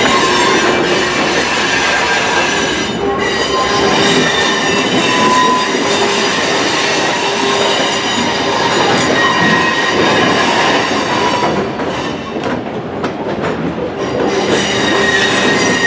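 Freight cars of a CN train rolling on the rails, wheels squealing in several steady high tones over a constant rumble.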